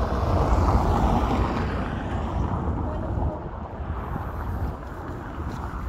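A car driving past on cobblestones, its tyre and engine noise swelling in the first couple of seconds and then fading, with wind buffeting the microphone throughout.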